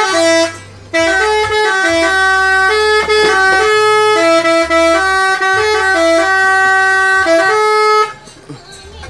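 Telolet horn, a multi-tone air horn, playing a melody: a short blast, then after a brief pause a run of stepped notes that stops about eight seconds in.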